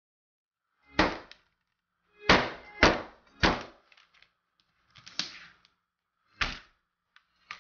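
Chef's knife chopping down through a blue crab's shell onto a plastic cutting board: six heavy thunks at uneven intervals, then a lighter knock near the end.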